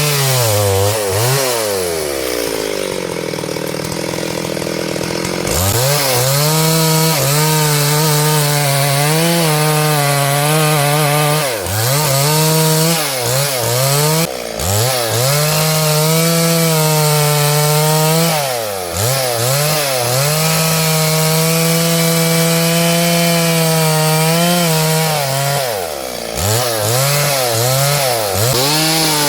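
Two-stroke chainsaw running at high revs while cutting wood, its pitch sagging and recovering again and again as the chain bites. About two seconds in it falls to a low idle for a few seconds, then revs back up. Several short dips in engine speed follow later.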